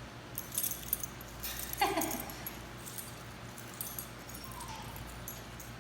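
A dog whining twice: a short falling whine about two seconds in and a fainter one near the end, with a few light clicks and rattles in the first second and a half. The whining is a sign of unease at being sent into an unfamiliar crate.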